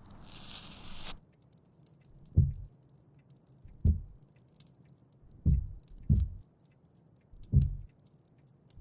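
A short burst of hiss, then slow, heavy low thuds, each dropping in pitch, about one every second and a half, with faint scattered crackles throughout.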